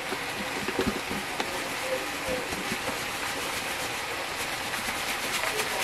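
Tilapia fillets being shaken in a lidded bowl of dry fish-fry breading: a steady gritty rattle with many small ticks, with a few knocks of the bowl in the first second.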